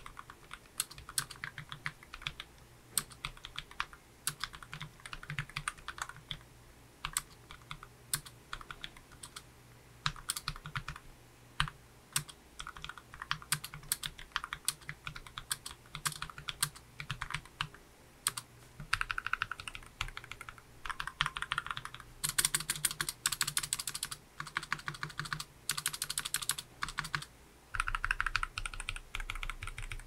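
Typing on a Redragon K589 low-profile mechanical keyboard with Outemu Red linear switches and a tape mod: a steady stream of keystrokes that turns into denser, faster runs in the second half.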